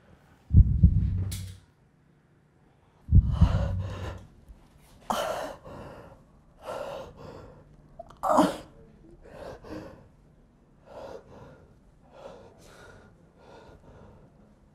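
Two heavy low thumps, then a man gasping and groaning in pain in short, strained breaths about once a second, growing fainter near the end.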